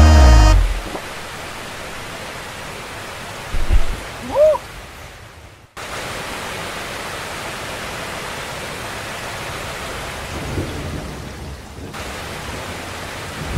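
Steady heavy rain, with low rumbles of thunder about four seconds in; the rain sound breaks off briefly near the middle, then carries on evenly.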